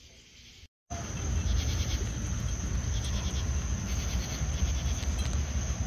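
Outdoor summer-night ambience: a steady high insect drone with faint pulsing, over a low rumble on the microphone. It starts abruptly just under a second in, after a moment of near quiet.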